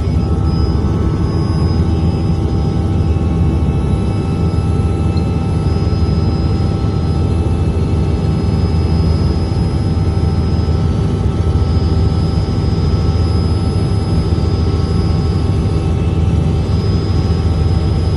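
Helicopter running steadily: a heavy low drone of engine and rotor with a steady high whine on top.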